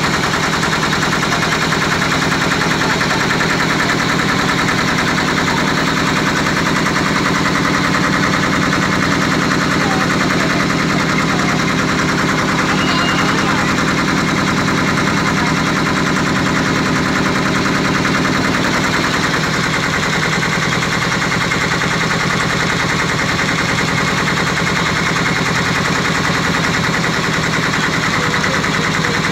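Small tour boat's engine running steadily with a fast, even beat.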